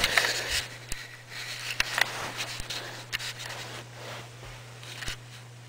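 Handling noise from a camera being moved and set in place: scattered clicks, rubs and light knocks, busiest in the first half, over a steady low hum.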